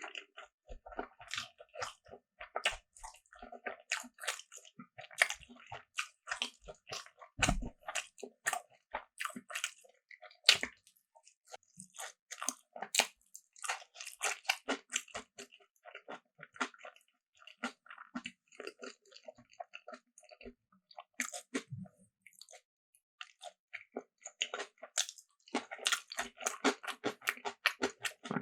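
Close-miked eating sounds: crunchy bites and wet chewing, heard as a dense, irregular run of small crackling clicks.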